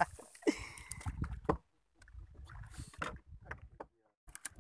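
Low rumble with scattered knocks and clicks from handling around a small wooden fishing boat, broken twice by a brief silence.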